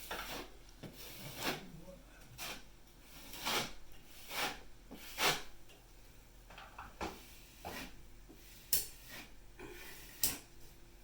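Irregular scrapes and knocks, about one a second, as ceiling fan parts are handled and fitted into place, over a faint steady electrical hum.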